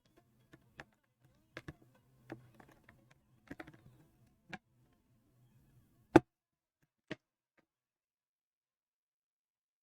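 A string of small clicks and taps, like tools and materials being handled during leatherwork, then one sharp, loud knock about six seconds in and a lighter one about a second later.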